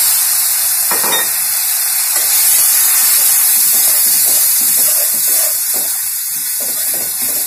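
Spice masala sizzling and hissing in hot oil in an aluminium kadhai just after a splash of water goes in. A steel spatula scrapes and stirs the pan once about a second in, then in quick repeated strokes through the second half.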